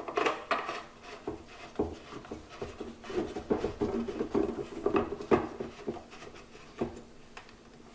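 Hard clicks and scraping as the leg of a Cadac Carri Chef 2 portable gas barbecue is fitted onto the notched socket under its burner, with a few sharp knocks scattered through it.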